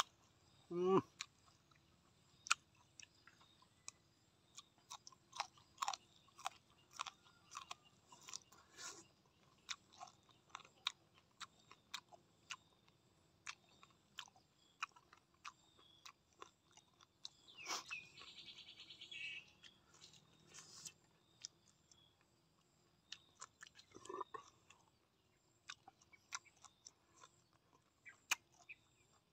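Close-miked chewing of raw beef: a stream of short wet mouth clicks and smacks. A louder pitched sound comes about a second in, and a brief high trill a little past the middle.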